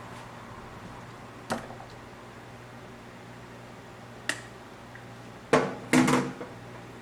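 A few short, sharp knocks of hard objects, spaced out at first and then two louder ones close together near the end, over a low steady hum.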